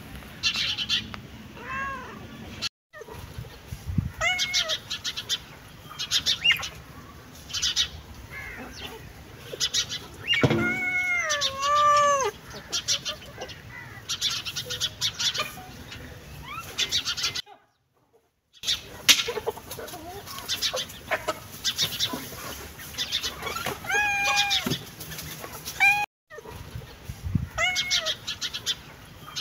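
A domestic cat meowing several times, each meow a drawn-out call that rises and falls in pitch; the longest comes about ten seconds in. Short high chirps of birds run through the background.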